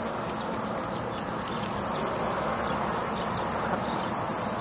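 Steady hiss of water spraying from a garden hose onto a grass lawn.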